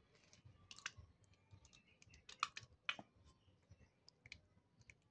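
A few faint, sharp clicks and small plastic sounds as aloe vera gel is squeezed from a plastic squeeze bottle onto a metal spoon in a plastic bowl, the loudest about halfway through.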